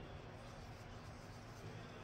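Faint room tone with a steady low hum; the hands pressing on the soft dough make no clearly audible sound.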